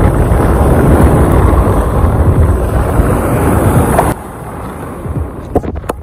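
Wind blowing hard across the microphone over small waves breaking on the shore, a heavy low rush. About four seconds in it cuts off abruptly to quieter surf, with a few sharp clicks near the end.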